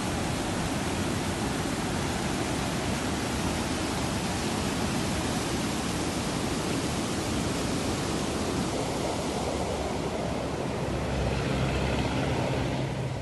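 Muddy floodwater pouring over a reservoir's spillway weir and churning below it: a steady rushing of water, with a deeper rumble coming in near the end before it fades away.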